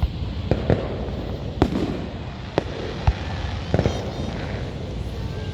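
Fireworks going off: about eight sharp bangs and pops at irregular intervals over a steady background of noise.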